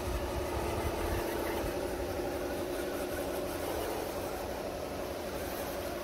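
Electric motors and geared drivetrains of RC scale 4x4 crawler trucks running under load as they climb out of a shallow stream, giving a steady whine.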